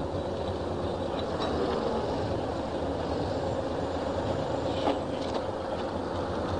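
Mobile crane engine running steadily: a low rumble with a faint steady whine over it and a few light knocks.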